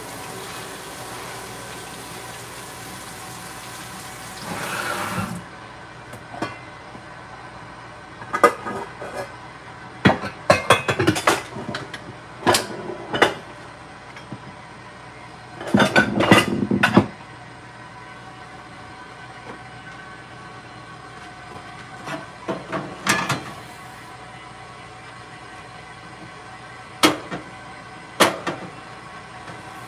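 Kitchen tap running, shut off about five seconds in, then scattered clanks and knocks of pans and cookware being handled, ending with a pan set down on the gas stove's grate.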